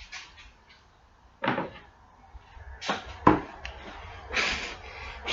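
A few separate strokes of a hand rasp on wood, with knocks from the wooden piece being handled between them.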